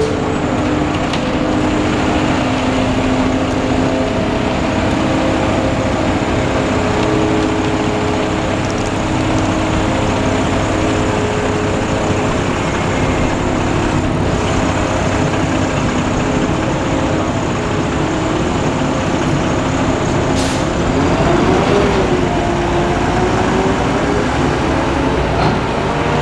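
Busy city street traffic: buses, trucks and cars running past, with a steady engine hum throughout. Near the end one engine's pitch dips and rises again.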